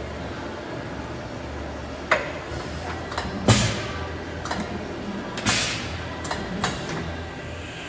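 Willis RTM100 CNC vertical machining center running with a steady low hum, and a series of about seven mechanical clunks and clicks. Two of them, the loudest, come with a short hiss of air.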